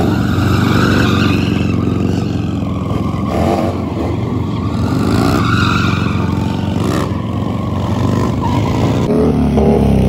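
Motorcycle engines running at high revs during stunt riding, the pitch rising and falling again and again as the throttle is worked.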